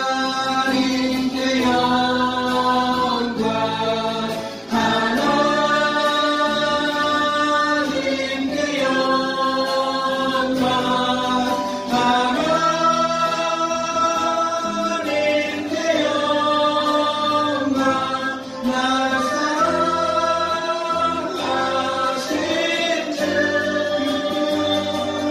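Live worship song sung by several voices together in held phrases, backed by a church praise band with keyboard.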